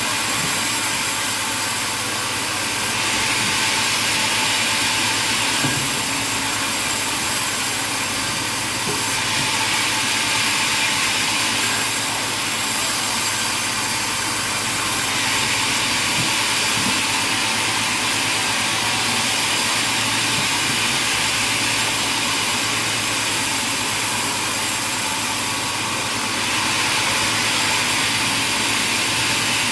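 Sawmill machinery running steadily, a loud hissing mechanical noise that swells and eases a few times over the half-minute.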